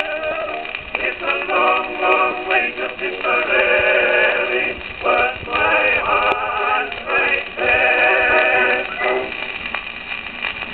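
Edison Blue Amberol cylinder playing on a cylinder phonograph: an early acoustic recording of a male singer with chorus and accompaniment. The singing ends about nine seconds in, leaving the record's surface noise.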